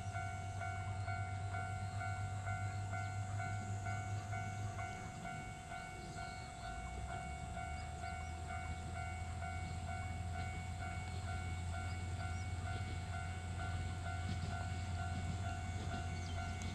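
Noto Railway NT100-series diesel railcar running toward the listener, its diesel engine giving a steady low drone that dips and settles onto a lower note about five to seven seconds in. Steady high-pitched tones pulsing evenly sound over it throughout.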